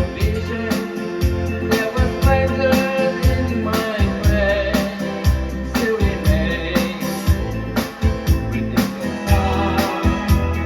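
Music: sustained organ-like keyboard chords over a steady drum beat and heavy bass.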